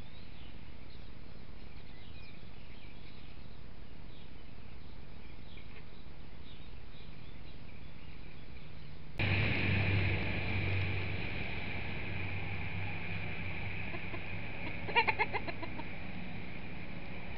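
A chicken clucking: a quick run of about five short clucks near the end, over steady hiss from the trail camera, with faint wild bird chirps earlier on.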